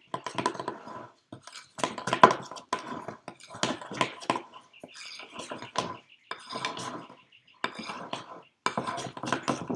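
A large spoon clattering and scraping against a mixing bowl while stirring a thick flour, salt and water dough, in irregular strokes with a few short pauses.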